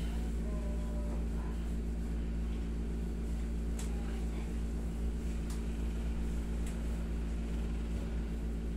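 Steady low hum of a wall-mounted room air conditioner running, with a few faint clicks.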